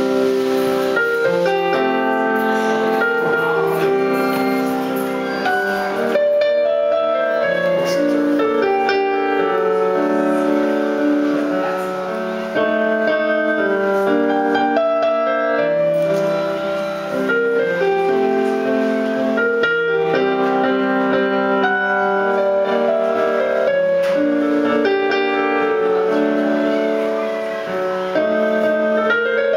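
Small jazz band playing live: a keyboard holds slow, sustained chords that change every second or two over an upright double bass.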